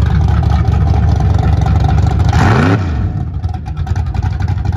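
Burnout pickup truck's engine running loud, with a quick rising rev and a burst of noise about two seconds in, then settling back to a lower, steady running sound.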